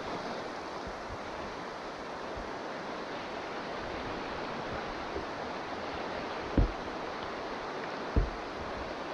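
River water rushing steadily around a kayak, with two dull thumps about a second and a half apart near the end.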